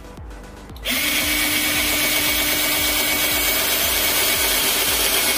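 Cordless drill running at a steady speed, its 1/8-inch twist bit boring a pilot hole into a wooden plank; the motor starts about a second in and holds one steady tone.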